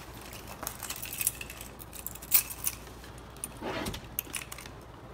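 Hands handling a shrink-wrapped cardboard laptop box: scattered light clicks and taps on the box and its plastic wrap, with a brief rub of the wrap a little before the end.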